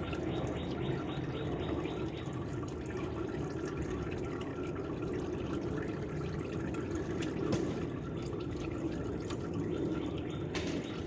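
Used engine oil draining out of a Porsche 911 Carrera 2 in a steady, continuous pour.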